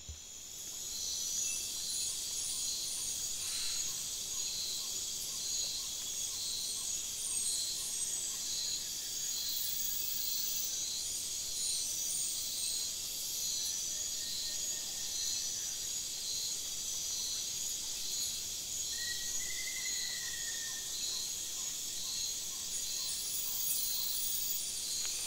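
Rainforest insect chorus: a steady, shrill, pulsing drone of many insects, fading in at the start. Groups of short, very high chirps come now and then, and a single drawn-out whistled call sounds about three quarters of the way through.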